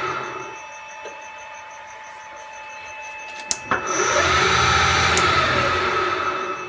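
Lathe spindle driven by a VFD-controlled electric motor braking to a stop at the start, falling in pitch. After a quiet gap a switch clicks about three and a half seconds in, the motor whines up to speed within about a second, runs briefly, and brakes down again near the end. This is a rapid start and stop on 1-second acceleration and 1-second resistor braking.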